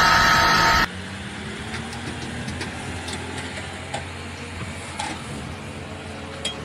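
A loud car engine with road noise cuts off abruptly just under a second in. Then a large four-wheel-drive tractor's diesel engine runs steadily and much more quietly, with a few faint knocks.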